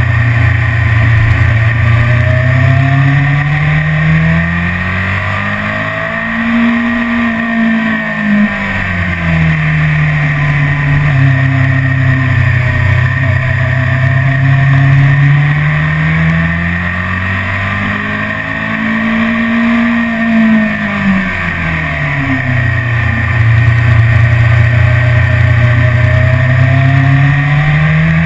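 BMW S1000RR's inline-four engine running on track, heard from on the bike. Its note holds steady, then climbs sharply and drops back twice as the rider opens the throttle and rolls off.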